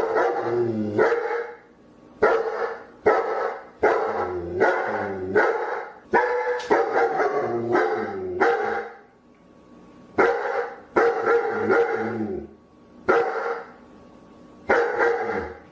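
A dog barking over and over, in quick runs of barks with short pauses between them.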